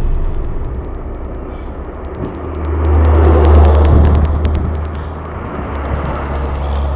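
A box truck driving past close by on the road. Its engine rumble and tyre noise swell to their loudest about three to four seconds in, then ease off as it goes by.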